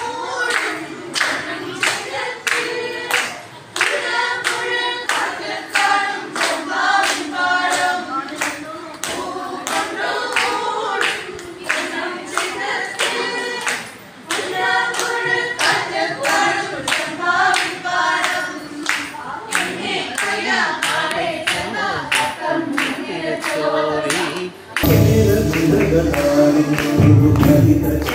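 A group of women singing a song together in unison, with hand-clapping keeping a steady beat. About three seconds before the end it cuts abruptly to louder recorded music with a heavy bass beat.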